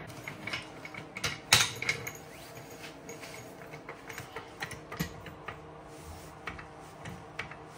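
Hydraulic floor jack under a car being worked by its handle: scattered light metallic clicks and knocks, the sharpest about a second and a half in.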